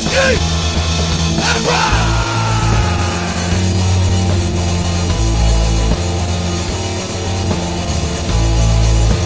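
Punk/hardcore song playing loud: distorted electric guitar, bass and a drum kit.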